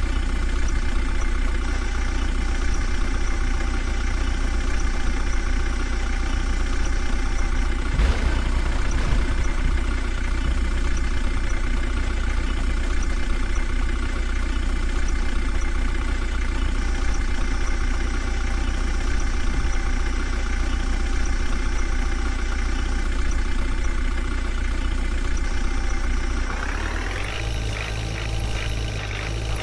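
Heavy diesel machinery engine running steadily, with a single knock about eight seconds in. Near the end the engine sound changes abruptly to a different, deeper hum.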